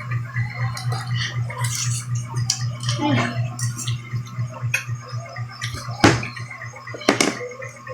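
Crabs being eaten by hand: scattered clicks and cracks of shells being broken and picked apart, with two sharper cracks about six and seven seconds in, over a steady low hum.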